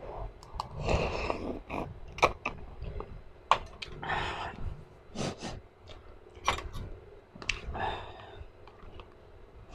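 Close-miked eating of spicy cup noodles: chewing and slurping with many wet mouth clicks. Three short noisy breaths come about a second in, about four seconds in, and near the end, as she reacts to the heat of the food.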